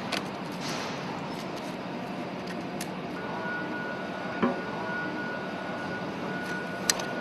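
Occasional sharp metal clicks and a knock from hand tools working on the exhaust cladding of an engine cylinder head, over a steady machinery hum. A thin steady whine comes in about halfway through.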